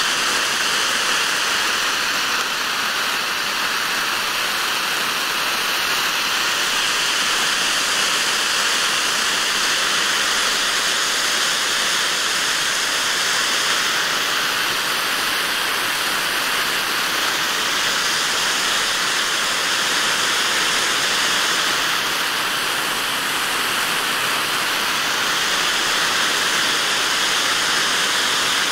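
Pyroland White Out volcano, a ground fountain firework, spraying sparks with a loud, steady hiss that holds at the same level throughout.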